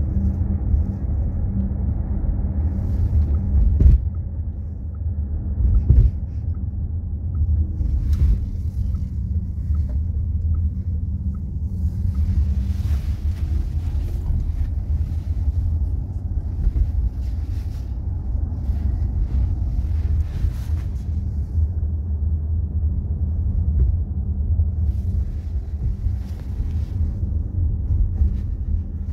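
Road and engine rumble inside a moving taxi's cabin, steady and low, with two short knocks a few seconds in.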